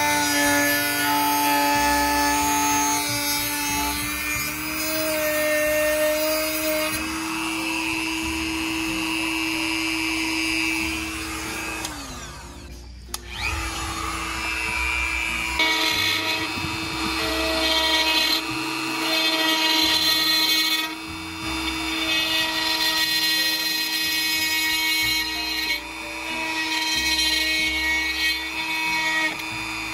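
Handheld Dremel-type rotary tool cutting slowly through fiberglass: a steady high motor whine whose pitch shifts as the cut loads it. The tool winds down and stops briefly about twelve seconds in, then starts up again.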